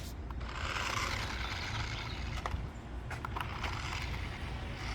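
Small electric motor of a remote-control toy car whirring as the car drives over the ground, strongest for the first couple of seconds, over a steady low rumble.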